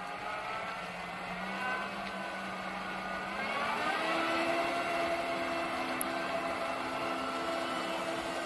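Engine of a UNAC 300RR² road-rail brush cutter running as the machine manoeuvres. It rises in pitch about halfway through as it picks up revs, then holds steady.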